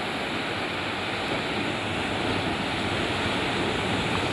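Steady, rushing wash of ocean surf, even throughout with no distinct events.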